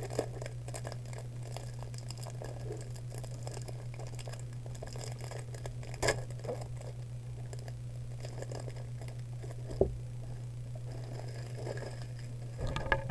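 Foil trading-card booster pack crinkling and tearing as it is opened by hand, with small scattered clicks and a couple of sharper taps, over a steady low hum.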